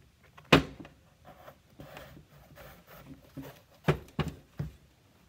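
Handling noise of a lace being pulled through the tongue of a leather figure-skating boot on a workbench: rustling and scraping, with a sharp knock about half a second in and three smaller knocks near the end.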